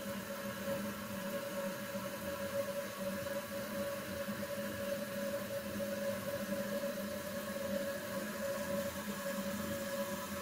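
Steady hum with several held tones over a light hiss, unchanging throughout.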